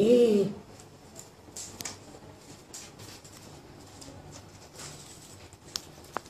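A short vocal sound that rises then falls, right at the start, followed by faint clicks and handling noise as hands work among wet herbs in a metal bowl of water, with two sharp ticks near the end.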